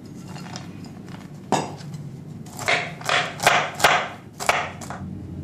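Kitchen knife chopping shelled walnuts on a wooden cutting board: a first sharp knock about a second and a half in, then a quick run of chops over about two seconds, after quieter handling of the nuts.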